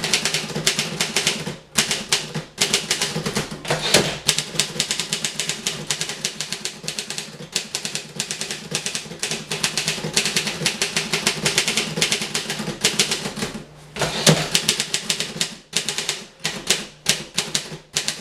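1950 Voss ST24 portable typewriter being typed on at speed: a fast, continuous clatter of typebar strikes, broken by a few short pauses, with a couple of heavier strokes about four and fourteen seconds in.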